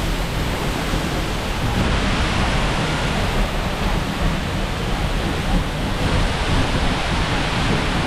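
Seljalandsfoss waterfall, a 60-metre drop, pouring into its plunge pool. The falling water makes a steady, dense rush with no break.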